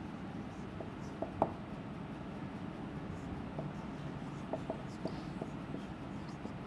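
Felt-tip marker writing on a whiteboard: scattered short taps and squeaks of the tip as letters are drawn, the sharpest about one and a half seconds in, over a steady low room hum.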